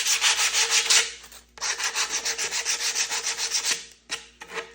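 Sandpaper rubbed in quick back-and-forth strokes along the edge of a wooden drawer-box piece, knocking down the burrs left by the table-saw blade. It stops briefly about a second in and again near the end.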